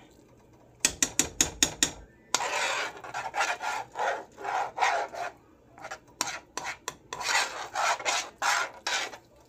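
A spoon stirring and scraping a thick, sticky rice-and-pasta mixture around a metal skillet: rasping scrape strokes in two longer spells, with runs of quick clicking strokes between them. Kissing "mwah" sounds are mixed in.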